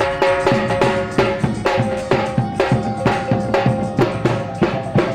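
Minangkabau talempong ensemble playing: rows of small gong-chimes struck in quick, ringing repeated patterns over drums keeping a steady beat of about three strokes a second.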